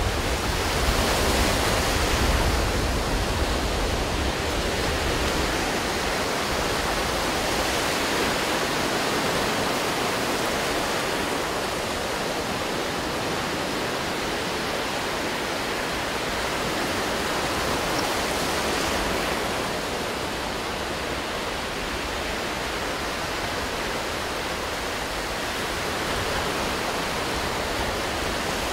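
Ocean surf breaking and washing through the shallows as a steady rush, with a low rumble underneath for the first five seconds or so.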